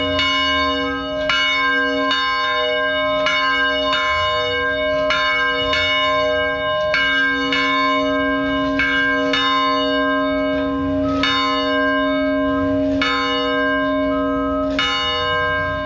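A church bell hung in a steel frame rung over and over, struck about once a second, each stroke ringing on into the next over a steady hum.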